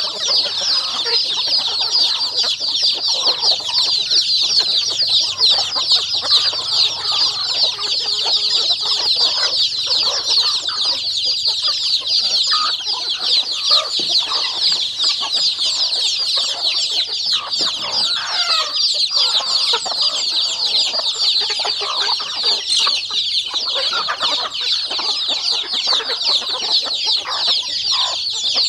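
A flock of chickens feeding, clucking here and there, over a steady high chorus of many rapid peeping calls that runs without a break.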